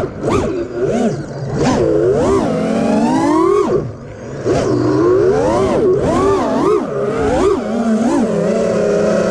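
FPV quadcopter's Emax RSII 2306 2400kv brushless motors with DAL propellers whining, their pitch swooping up and down quickly as the throttle is punched and chopped. Near four seconds in the sound briefly drops low.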